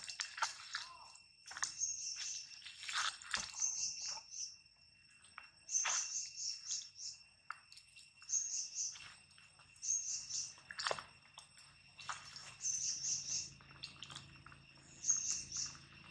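Dry leaves crackling and rustling as monkeys move and forage on leaf-strewn ground, with short clusters of very high chirps about every two seconds and a steady high whine underneath.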